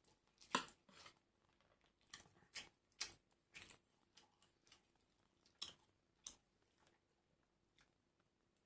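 Crisp crunches of food being bitten and chewed, about eight sharp irregular crunches, the loudest just over half a second in.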